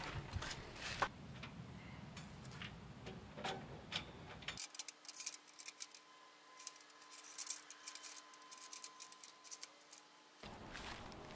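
Faint, scattered light clicks and clinks of aluminium parts as a hitch-mounted aluminium cargo carrier and bike rack is handled and put together.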